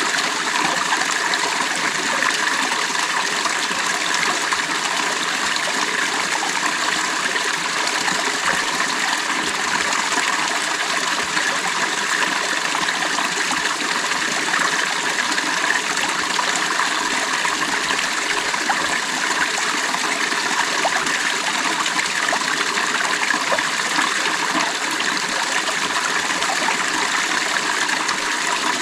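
Water of a stream running steadily over rocks, an even babbling rush with fine trickling detail.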